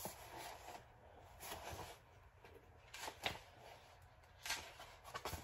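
Faint rustling of paperback book pages being flipped by hand, with a few light ticks and taps as the pages and cover are handled.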